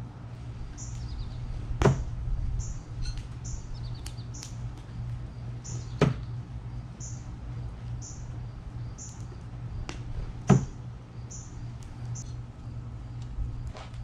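Throwing knives striking a wooden log-round target three times, about four seconds apart, each a sharp thunk. A bird chirps repeatedly in the background.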